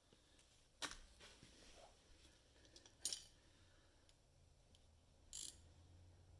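Near silence broken by three short, sharp metal clinks about two seconds apart, from hand tools working the stripped bottom nut of a car's outer tie rod end.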